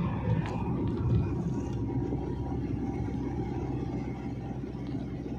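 Steady low rumble of a moving vehicle's engine and tyres on the road, heard from aboard the vehicle.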